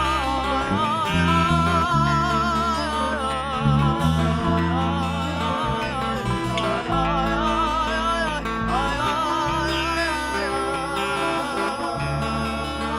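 Live music: a woman singing a melody with a wavering pitch over plucked guitar accompaniment and held low bass notes.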